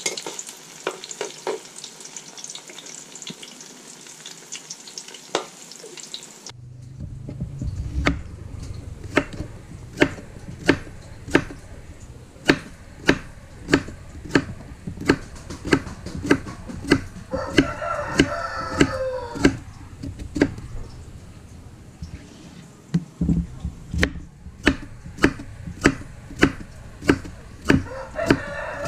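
Banana slices frying in oil in a steel wok, a steady sizzle with the scrape and tap of a metal spatula, cut off abruptly about six seconds in. Then a kitchen knife slicing cucumber on a wooden chopping board: an even knock about one and a half times a second, with a brief pitched call once in the middle.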